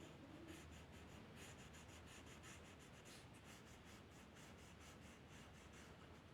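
Faint, quick repeated strokes of a pen or marker drawing and colouring on paper.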